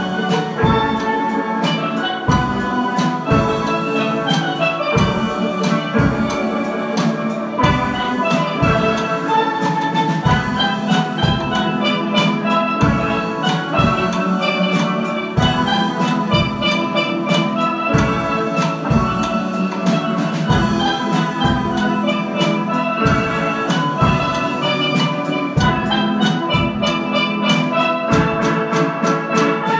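Steel band playing: several steelpans ring out a quick melody of many short notes over a steady drum beat.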